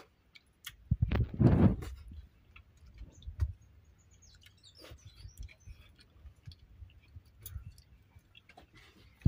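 Eating by hand from steel plates: fingers scraping and tapping on the steel and mixing rice, with scattered small clicks. A louder thump about a second and a half in.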